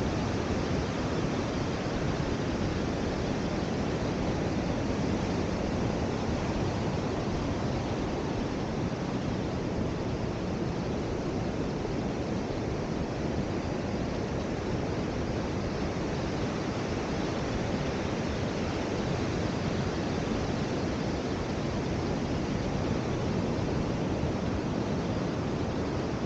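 Steady, even rush of surf breaking on a beach.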